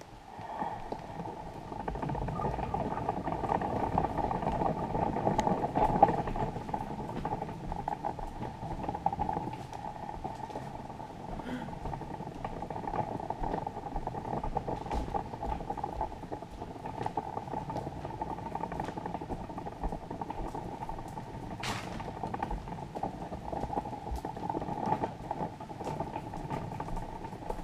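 Stroller wheels rolling over hardwood floors: a steady rolling noise with scattered light clicks and rattles from the frame, and one sharp click about three-quarters of the way through.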